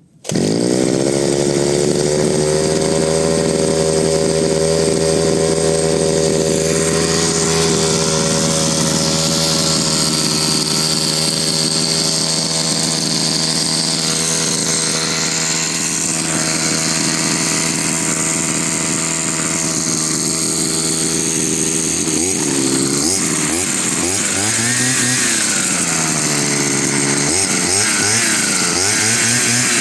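Chinese 43 cc two-stroke brush cutter engine starting at once and running at a steady speed. From about two-thirds of the way through, the throttle is opened and closed several times, so the engine revs up and down.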